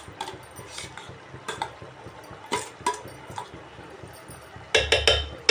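Steel spoon scraping and clinking against a steel plate and the rim of a metal cooking pot, knocking mashed boiled potato off, with a quick run of louder taps near the end.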